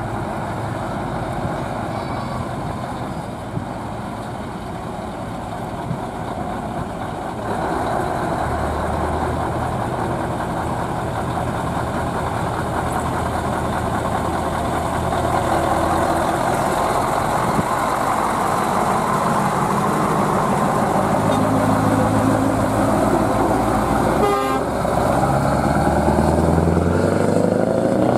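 Scania T-series truck with open exhaust pipes pulling a loaded low loader, its deep engine note getting louder about seven seconds in and rising in pitch several times near the end as it accelerates.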